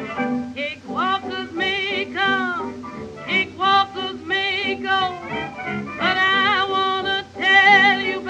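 Recorded music with a singer holding notes with wide vibrato, in short phrases that slide up into each note.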